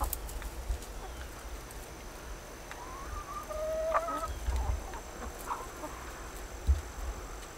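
Chickens clucking, with one drawn-out call about three to four seconds in and a few short clucks after it. Low rumbling on the microphone and a single thump near the end.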